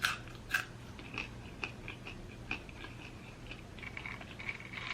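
A person chewing food, with short wet mouth clicks and smacks every half second or so.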